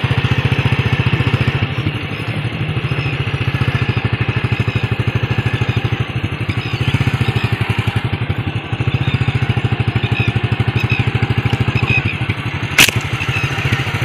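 A motorcycle engine idling with a steady, rapid putter. Near the end a single sharp snap is heard, a slingshot shot.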